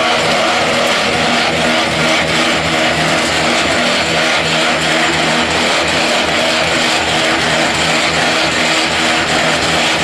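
Steady, loud machinery noise from a mobile hydraulic block-making machine at work, its hydraulic power unit and mould vibrators running, mixed with the diesel engine of a wheel loader working beside it. There is a fast, even pulsing in the low end.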